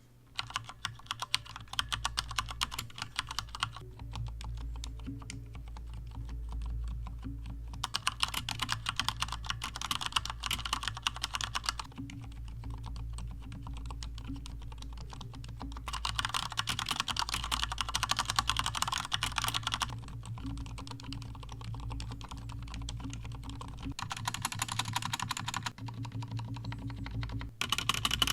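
Fast, continuous typing on a fully lubed Alienware AW920K mechanical keyboard: switches lubed with Krytox 205g0, springs with Krytox 105, stabilizers with Permatex. The keystrokes alternate every few seconds between brighter, clackier passages and duller, softer ones, over a steady low hum.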